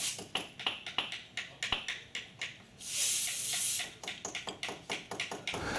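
Clicks and taps from handling the FX Impact PCP air rifle, with one short hiss of escaping air about three seconds in, fitting its removable carbon fibre air bottle being unscrewed.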